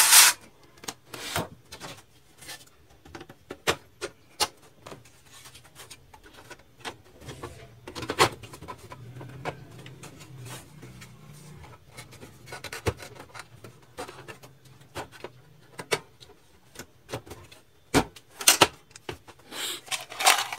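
Hands handling and fitting plastic and metal printer parts: scattered light clicks and knocks with some rubbing, and a few sharper clacks, the loudest near the end.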